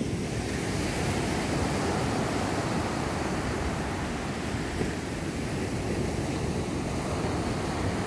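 Rough sea surf after a typhoon breaking and washing up a sandy beach in a steady wash, with wind buffeting the microphone.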